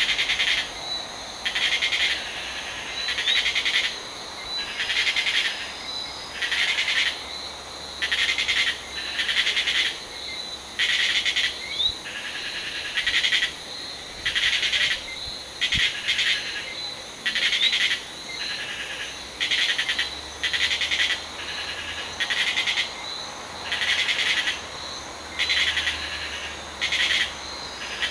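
Caribbean night chorus of insects and frogs: a loud insect call in regular pulses, one buzzing burst of about half a second a little under every second, over a steady high-pitched trill, with a few short rising chirps.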